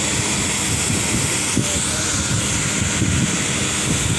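High-pressure washer pump running, its water jet spraying onto an air conditioner to clean it: a steady, even rushing hiss.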